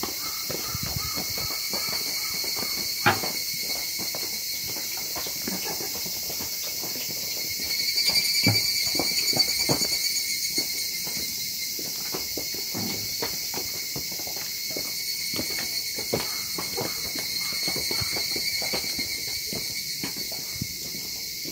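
A chorus of insects calling steadily on a few high pitches, growing louder about eight seconds in and again near the end, over irregular footsteps. A single sharp knock about three seconds in.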